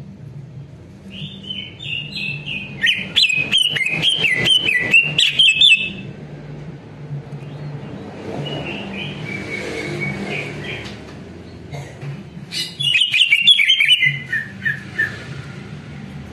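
Male greater green leafbird (cucak ijo) singing in two loud bursts of fast, varied warbling mixed with rapid clicking chatter, with a softer, shorter phrase between them. A steady low hum runs underneath.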